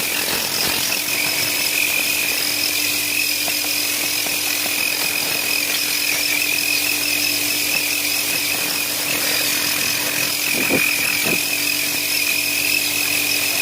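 Knock-off Tornador-style compressed-air cleaning gun blowing steadily: a loud hiss with a high whistle, over a steady low hum.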